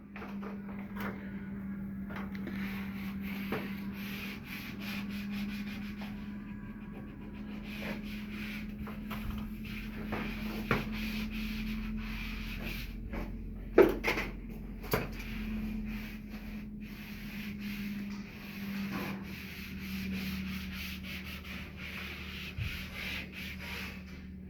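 Tools worked over wallpaper on a wall: continuous rubbing and scraping strokes across the paper with scattered sharp clicks, two louder ones about two-thirds of the way in. Heard while double-cutting and smoothing a wallpaper seam.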